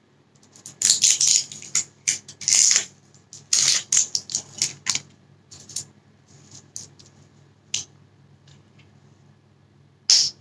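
Plastic shrink seal being peeled and torn off the cap of a plastic sauce bottle: a quick run of sharp crinkles and crackles in the first five seconds, then scattered crackles, and one louder crackle just before the end as the cap is twisted.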